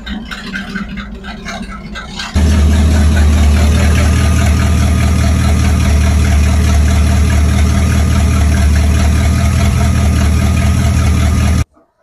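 Classic Pontiac Firebird's engine idling steadily, louder from about two seconds in, then cutting off abruptly near the end. No tapping is heard: the tapping, which the owner put down to a bad lifter or a failing rod, has gone after an MOA oil additive was added.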